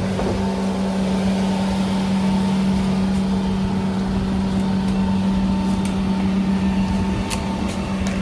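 A motor or engine running steadily with a constant low hum, unchanging in pitch, with a few faint ticks near the end.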